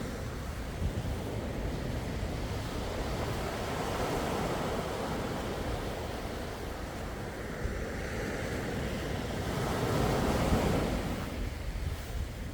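Sea waves washing in and drawing back, each swell rising and falling in a steady hiss of surf, with a louder wave about ten seconds in. Wind rumbles on the microphone underneath.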